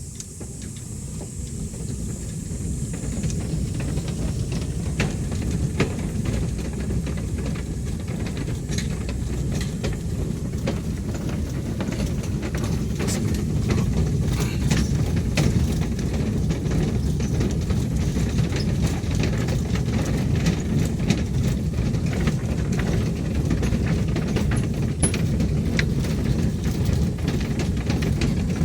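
A car crossing a narrow suspension bridge: a steady low rumble of tyres on the bridge deck with a continual clatter of knocks and clicks, building up over the first few seconds.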